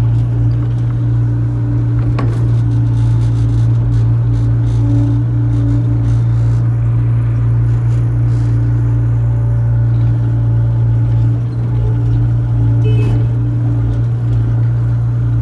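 Excavator's diesel engine running steadily with a deep, even hum, heard from inside the cab as it works loading soil. A couple of short knocks, about two seconds in and again near the end.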